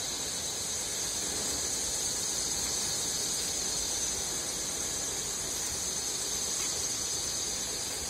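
Cable extrusion production line machinery running, giving a steady high-pitched whine over an even hiss.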